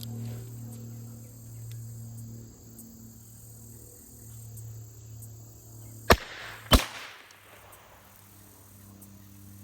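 Two .22 LR gunshots from a Heritage Rough Rider single-action revolver, about two-thirds of a second apart, a little over six seconds in. Crickets and a low steady hum underneath.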